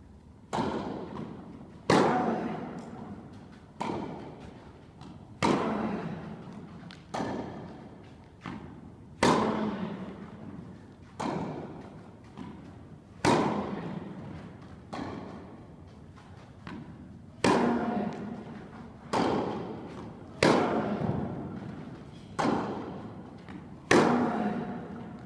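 Tennis rally on an indoor court: racket strikes and ball bounces about every second and a half, each echoing through the large hall. The loudest hits come every three to four seconds.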